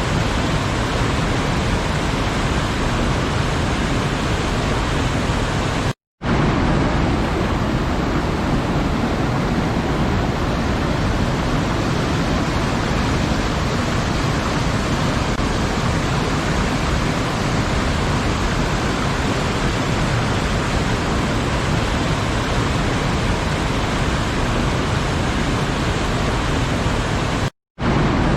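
Waterfall: a steady, dense rush of falling water. It cuts out to silence for a split second twice, about six seconds in and near the end.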